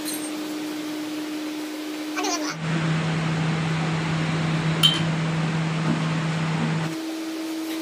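Steady mechanical hum with room noise. About two and a half seconds in it switches abruptly to a lower hum with more hiss and one sharp click near five seconds, then switches back about seven seconds in.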